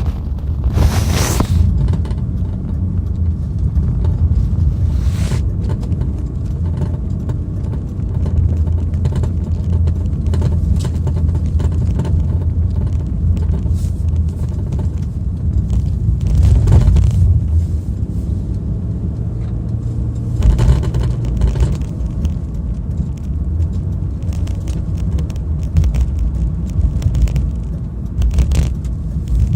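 BMW E36 on the move, a steady low road rumble with a knock now and then from around the rear strut mount, a knock whose cause the owner cannot find.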